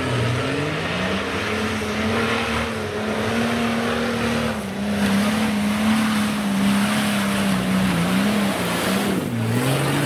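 Off-road 4x4's engine held at high revs under full throttle as it climbs a steep muddy slope. The revs rise about a second in, hold steady, and drop briefly near the end before climbing again.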